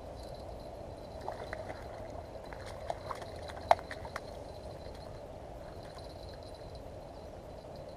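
Stones clacking under footsteps at the river's edge: a few sharp clicks and knocks in the first half, the loudest about three and a half seconds in, over a steady rush of background noise.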